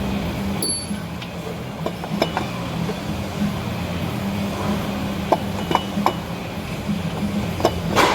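Light metallic clinks and taps of hand tools and sockets against metal while unbolting a car's AC compressor, over a steady low hum, with a few sharper knocks near the end.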